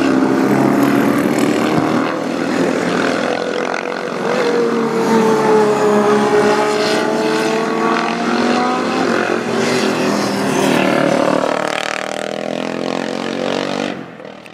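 Vintage racing motorcycle engines running hard through a corner as several bikes go by in turn. The exhaust pitch climbs and then slowly falls as they accelerate and pass, and the sound dies away near the end.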